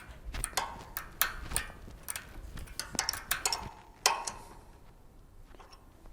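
Irregular metallic clicks and taps as a bicycle pedal is threaded and tightened into the crank arm, growing sparse about four seconds in.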